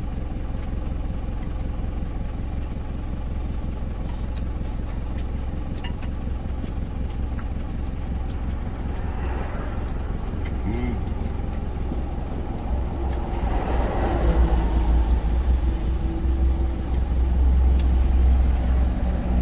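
Truck engine idling, a steady low rumble heard from inside the cab, growing louder twice in the second half. Light clicks of wooden chopsticks against a plastic food container sound over it now and then.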